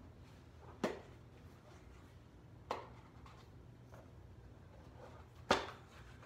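Three sharp snaps, about two seconds apart, as a small package is handled and pried at while it refuses to open, over a faint low hum.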